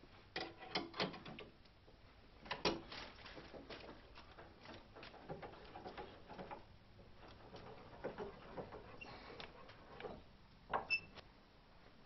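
Scattered light clicks and knocks of hands handling a fluid bottle and the reservoir cap while topping up a power steering system, with one louder knock about two and a half seconds in and a few more near the end.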